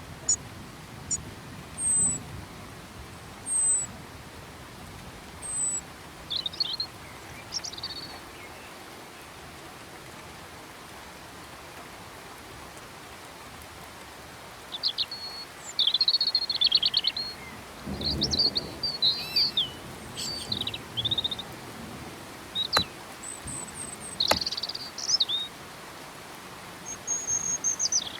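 Several songbirds calling and singing in the rain over a steady hiss of rainfall: short, high, thin notes at first, then livelier song phrases about halfway through and again near the end, with a few sharp drip-like ticks.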